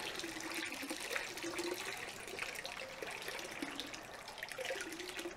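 Seawater draining through a fine hand net and splashing into the water of a storage tank, a steady stream that eases slightly toward the end.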